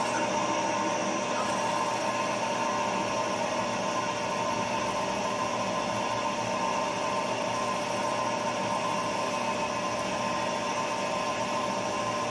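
Milling machine spindle running with a hand-sharpened 5/16-inch twist drill cutting a hole into a metal block: a steady hum and hiss with a couple of held tones.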